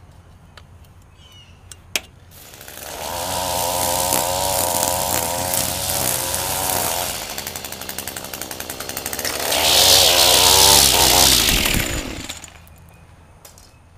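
Two-stroke gas string trimmer revving up about two seconds in and running at high speed with a wavering, uneven pitch. It drops back, revs hard again, then shuts off near the end. It is running with more power after its exhaust port was cleaned of carbon, but a little rough.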